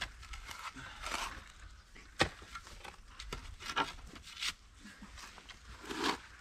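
A shovel digging into earth: a series of irregular strikes and scrapes, the sharpest a little after two seconds in.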